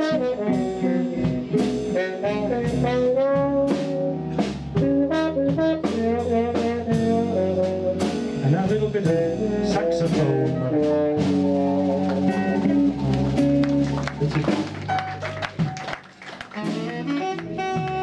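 Trombone solo played with a hand-held mute over the bell, backed by a jazz-blues band with drums.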